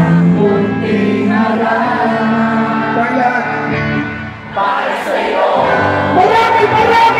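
Live rock band playing a slow song with many voices singing over it: the crowd singing along with the band. The sound dips briefly about four seconds in, then swells again.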